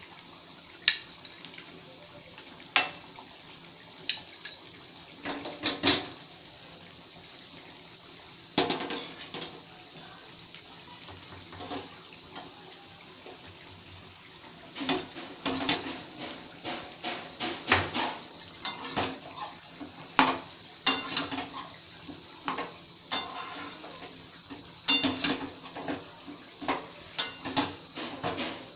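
A long flat metal spatula scraping and clinking against a steel kadai as fried rice is stirred. The knocks are irregular, sparse at first and coming thick and fast in the second half, over a steady high hiss.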